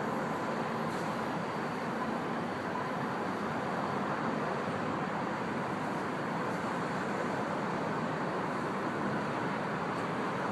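Steady, even traffic noise with no distinct passes or impacts, and a faint steady tone near the start.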